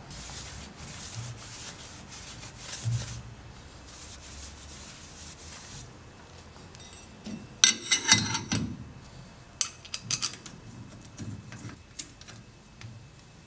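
Threading-machine work: a steady hiss with a low hum for about six seconds, then a burst of metallic clatter about eight seconds in and scattered clicks after it.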